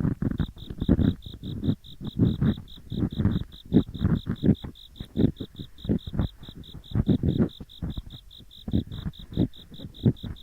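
Ear picks scraping and rubbing in both ears of a binaural microphone at once, a rough gori-gori scratching in irregular strokes. Underneath, autumn insects chirp in an even pulse of about six a second.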